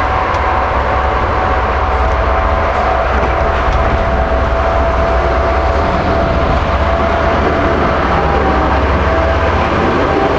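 A DE10-class diesel-hydraulic locomotive running at low speed as it approaches and draws alongside. The diesel engine gives a low, steady rumble, with a steady whine over it that drops slightly in pitch about two seconds in.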